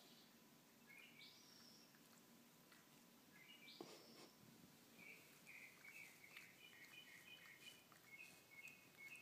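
Near-silent room with faint bird song: rising chirps about a second in and again around four seconds in, then a quick series of short repeated high notes from about five seconds on. A brief faint knock sounds near four seconds in.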